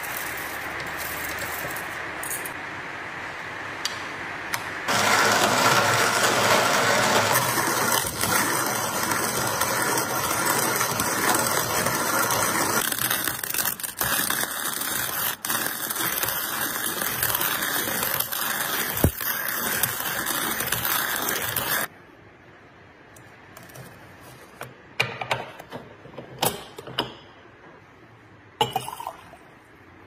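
Old wooden-box hand-crank coffee mill grinding coffee beans: a steady grinding noise that gets louder about five seconds in and stops suddenly about two-thirds of the way through. After that come a few light clicks and knocks.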